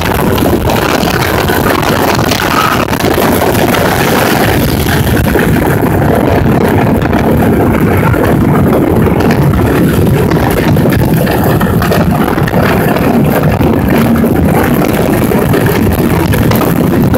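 Wooden roller coaster train running fast along its wooden track: a loud, steady rumble and clatter, with wind rushing past the microphone.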